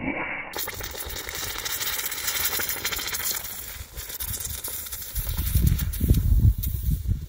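Molten lead poured onto an ostrich egg, sizzling and crackling with a steady hiss as it boils the egg's contents into steam. From about five seconds in, a low rumble of wind buffets the microphone.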